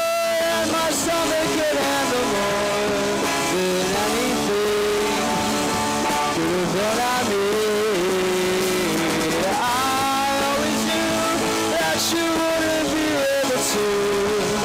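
Live rock band playing an instrumental passage on electric guitars, bass and drums, with a lead guitar line whose notes slide and bend in pitch over the drum beat and cymbals.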